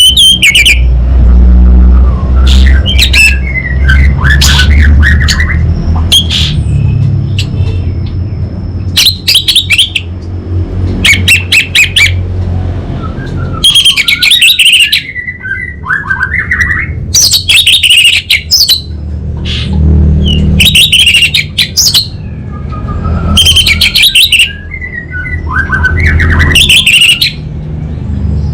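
Orange-headed thrush singing loud, varied, high song phrases, one every two to three seconds, over a steady low rumble.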